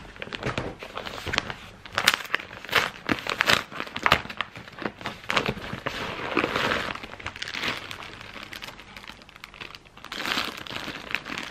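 A padded paper mailer being opened, its paper crinkling and tearing in irregular crackles, then a resealable plastic bag of enamel pins rustling as it is pulled out near the end.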